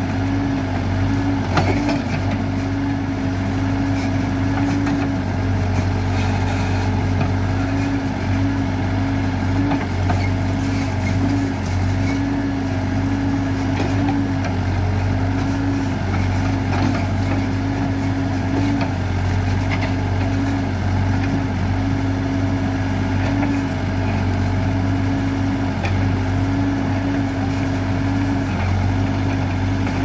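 Hidromek 102B backhoe loader's diesel engine running steadily while its backhoe arm digs out a tree stump, with a few sharp knocks.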